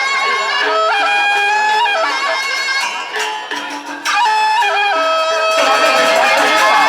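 Traditional Lombok music with a shrill reed pipe playing a held, ornamented melody over percussion; the percussion thickens about five and a half seconds in.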